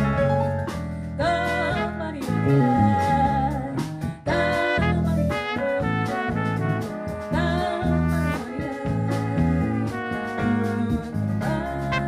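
Jazz group playing a chacarera live: horn and voice melody lines over piano, bass and drums, with a short break about four seconds in.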